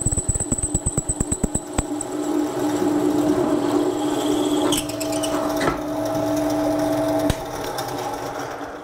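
Bench drill press with a freshly sharpened 11.5 mm twist drill cutting through a thin-walled 20×20 steel tube under light feed pressure. Rapid clicking comes in the first two seconds as the bit cuts, over a steady machine hum. The hum stops about seven seconds in and the sound dies away. The bit goes through easily, which is the sign of a correctly sharpened drill.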